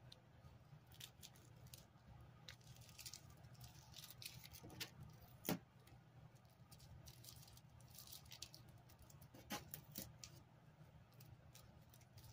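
Near silence with faint, scattered clicks and small metallic rattles of hands handling small parts on a TV's sheet-metal back chassis during a teardown, with one sharper tap about halfway through.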